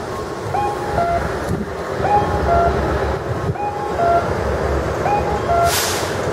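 Rikuun No. 21 audible pedestrian-signal speaker playing its electronic cuckoo call during the walk phase: a two-note 'kak-kō', high then lower, repeating about every one and a half seconds. A fainter, higher-pitched call from a second speaker sounds in between. A low traffic rumble runs underneath, and a short hiss comes near the end.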